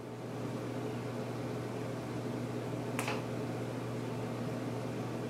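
A steady low hum, with a single short click about three seconds in.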